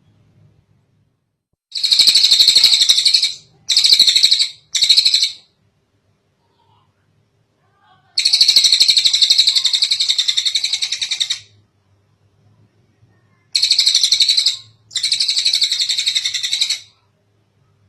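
Tengkek cililin, a small kingfisher, giving rapid chattering trills in six bursts. There is a close pair and a short one in the first few seconds, one long trill of about three seconds in the middle, and a pair near the end.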